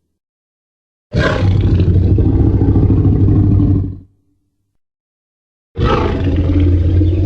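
Two Tyrannosaurus rex roar sound effects from film. The first is a deep, rough roar of about three seconds starting about a second in. After a short silence a second roar begins near the end.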